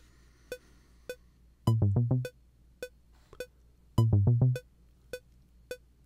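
A StepDesigner step sequence playing the HALion 7 synth: a quick run of about five short, low 16th notes stepping in pitch, repeating once per bar, over a short click on every beat at about 104 beats per minute.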